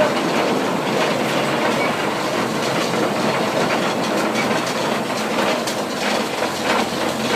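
Sawmill machinery running: a steady mechanical clatter with rapid, irregular rattling and clicking.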